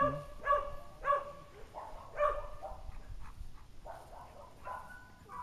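Dog barking and yipping: a string of short, high barks about half a second apart, growing fainter after about two seconds.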